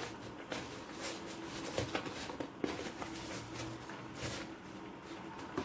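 Hands rubbing and packing coarse rock salt onto raw beef fillet in a plastic container: a soft gritty scrunching of salt grains, with scattered light clicks as the meat and hands touch the container.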